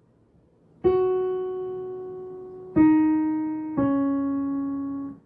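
Piano played on the black keys: three struck notes or chords, the first held longest, each lower than the one before, each fading, then all released together near the end.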